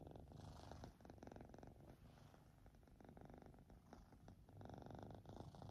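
Kitten purring, a faint steady rumble.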